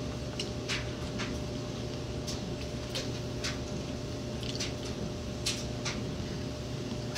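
Close-up eating sounds: wet chewing and lip-smacking clicks, a dozen or so short ones at uneven intervals, from a person eating soft macaroni and cheese, over a steady low hum.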